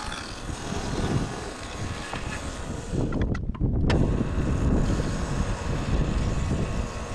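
Portable bandsaw sawmill's engine running steadily at speed. About four seconds in the sound thins briefly, then gets louder and fuller as the band blade bites into the ash log and starts the cut.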